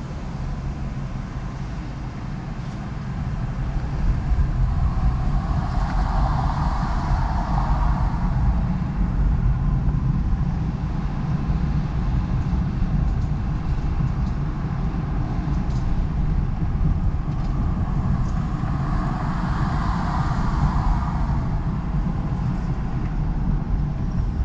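Car driving on city streets: steady low road and engine noise that grows louder a few seconds in, with two swells of higher tyre and traffic noise, about a quarter of the way in and again near the end.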